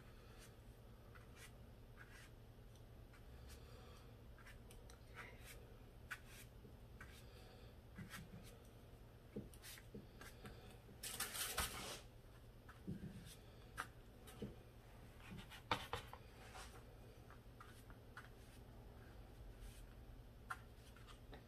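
Quiet, intermittent brushing and scraping of a wide flat paintbrush working watercolour on paper, with a few soft taps. There is a louder rustle about halfway through.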